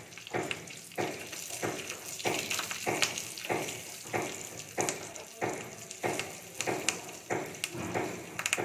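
Hot oil sizzling in a small aluminium tempering pan with mustard seeds, curry leaves and green chillies, the seeds crackling, while a steel spoon stirs and scrapes the pan in regular strokes a little under two a second.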